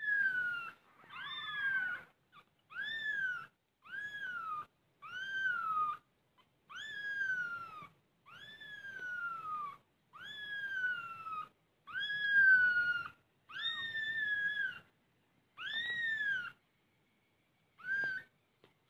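Young kitten crying in a string of about a dozen high mews, each rising then falling and lasting about a second, roughly one every second and a half, the last one short.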